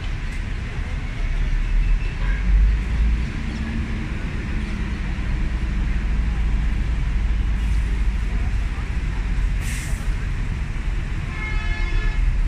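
Steady low rumble of outdoor street ambience, with a short hiss about ten seconds in and a brief pitched call near the end.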